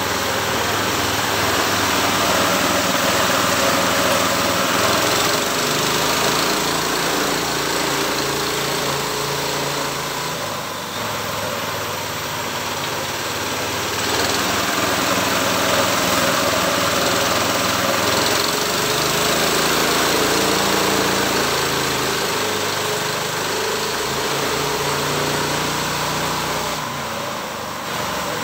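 Engine of a homemade sawmill running, its pitch dipping and recovering a few times.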